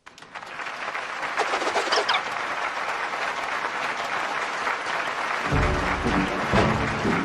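Cartoon audience applauding, a steady patter of clapping that builds up quickly. About five and a half seconds in, low pitched tones join the clapping.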